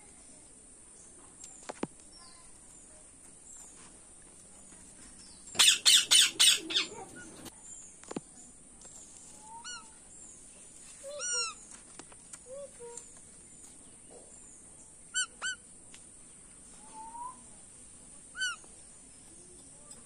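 Indian ringneck parakeets calling: a quick run of about six loud, harsh screeches about six seconds in, then a few short, scattered chirps.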